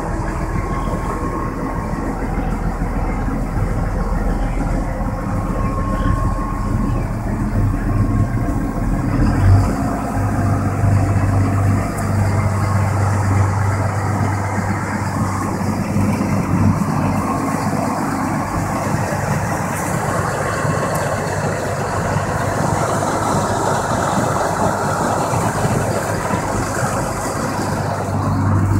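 A scallop boat's engine running steadily under way, heard from inside the cabin, over the rushing of water and broken ice along the hull. The engine note changes about ten seconds in.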